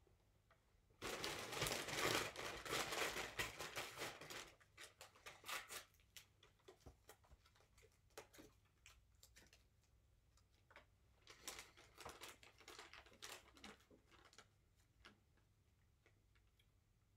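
Paper crinkling and rustling as a McDonald's paper takeaway bag and its paper receipt are handled. The loudest stretch starts about a second in and lasts some three seconds, with a second shorter bout of rustling around twelve seconds and light paper ticks in between.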